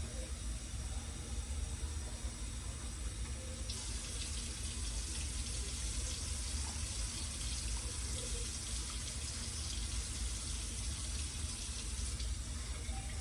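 Kitchen tap running water into an empty coconut milk can; the steady rush turns brighter and hissier about four seconds in.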